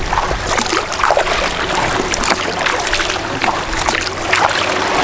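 Repeated splashes of a double-bladed kayak paddle driving a small solo pack canoe through choppy, wind-driven waves, with water washing against the hull and wind rumbling on the microphone.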